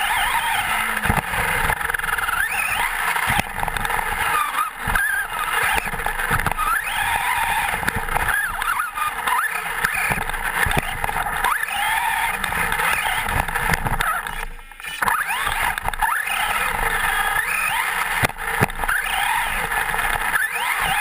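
Traxxas Slash 4x4 RC truck's electric motor and drivetrain whining, the pitch rising and falling with the throttle, along with tyre noise on dirt and knocks from bumps, heard from a camera mounted on the truck. The whine briefly drops away about two-thirds through.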